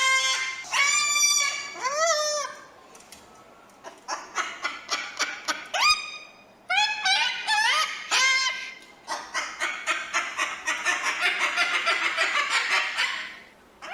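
Cockatoo calling: a string of loud pitched calls, several rising in pitch, broken by runs of quick clipped notes, with a long fast chatter over the last few seconds.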